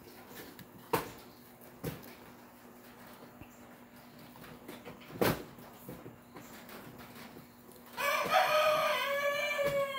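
A few sharp knocks, then near the end a rooster crows: one long call.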